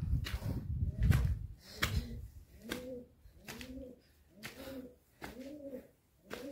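Pigeon cooing: a run of soft, rising-and-falling coos about one a second, starting about three seconds in. Before the coos there are footsteps on gritty stone steps and a low rumble.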